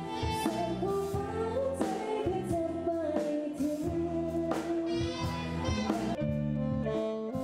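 A band playing with a singer: a wavering sung melody over steady low accompaniment.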